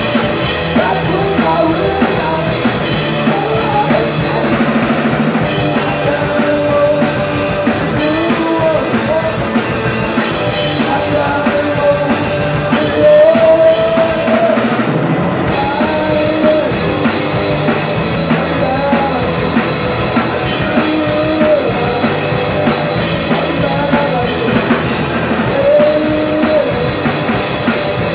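Live rock band playing loudly: electric guitar with bending, gliding lead lines over bass guitar and a drum kit.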